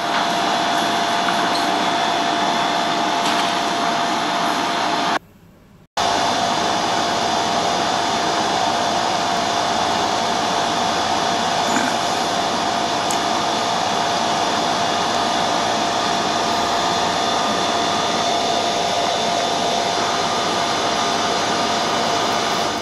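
A loud, steady rushing noise with a constant mid-pitched whine in it, like a blower running. It drops out briefly about five seconds in and then resumes unchanged.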